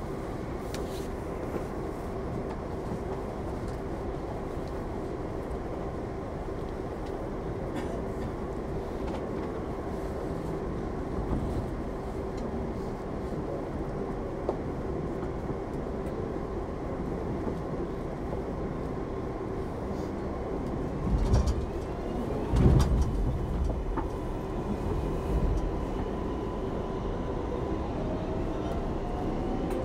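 New York City subway 7 train running between stations, heard from inside the car: a steady rail rumble with a constant motor hum. A few heavy thumps come a little past two-thirds of the way through, and a motor whine rises in pitch near the end.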